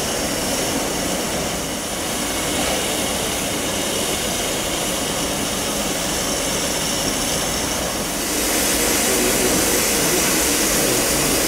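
Steam hissing steadily from LNER A4 Pacific 60007 Sir Nigel Gresley as it stands at the platform, growing louder about two thirds of the way through.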